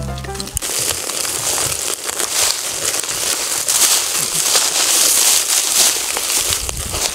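Slices of beef sizzling and crackling on a wire grill over an open fire, with flames flaring up under the meat.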